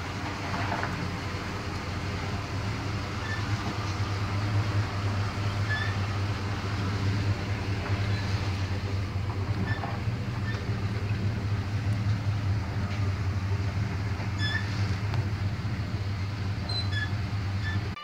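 1977 GMC Sierra Grande pickup's engine running at low speed while the truck is crept slowly into a tight parking spot, a steady low drone that grows a little louder in the middle.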